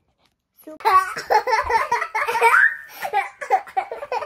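Young children laughing and squealing excitedly, breaking in suddenly about half a second in.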